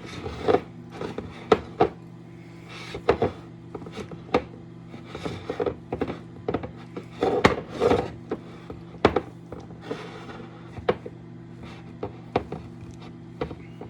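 Shredded coconut and flour being mixed by hand: irregular rustling with sharp taps and knocks, over a steady low hum.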